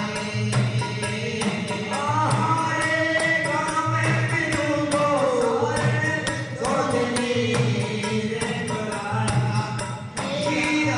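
Devotional folk bhajan music: a gliding melody over a steady beat of hand percussion and a low sustained accompaniment.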